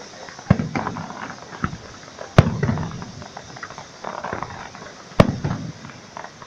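Fireworks display: three loud shell bursts, about half a second, two and a half and five seconds in, each followed by a low rumbling tail, with lighter crackles and snaps between them.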